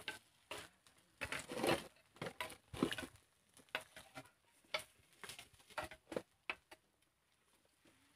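Light, irregular clicks and scrapes of a metal spoon and bamboo sticks against a black cake-mold pan, as small rice cakes are pried loose and lifted out of their hollows.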